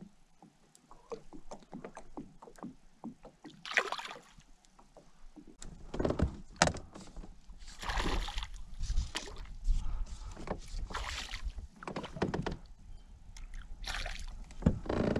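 A hooked bass thrashing and splashing at the surface beside a kayak as it is played toward the net, with four or five separate splashes. Light clicks and taps come in the first few seconds.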